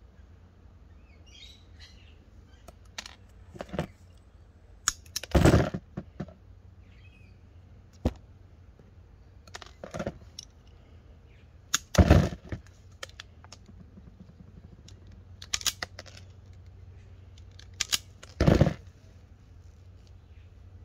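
Hand wiring tools (a ratchet ferrule crimper and wire strippers) clicking and snapping shut on wire ends as bootlace ferrules are crimped on, a series of sharp snaps a few seconds apart with smaller clicks between. Faint birds chirp about two seconds in.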